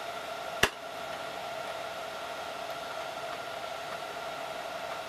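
A single sharp click under a second in, then the steady whirring hum of a running PC, with a faint steady tone in it.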